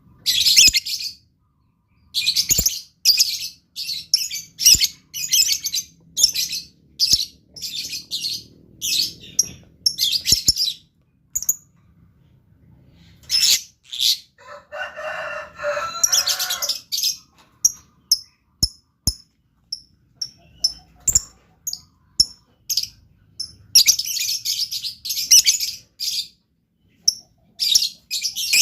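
Lovebird chattering in quick bursts of shrill, high-pitched chirps, with a lower, rasping stretch about halfway through and a few sharp clicks.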